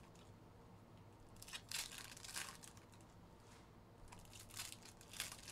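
Faint swishing and rustling of a stack of trading cards being handled and slid against each other, in a few short strokes: a cluster about one and a half to two and a half seconds in and another near the end.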